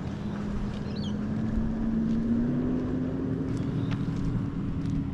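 A motor engine running with a steady hum that rises slightly in pitch and grows a little louder about two seconds in, over a low rumble.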